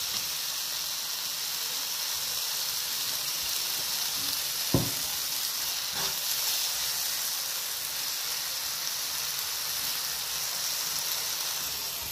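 Diced tomatoes, onions and cilantro sizzling as they fry in a pan while being stirred. A sharp knock sounds near the middle, with a lighter one about a second later.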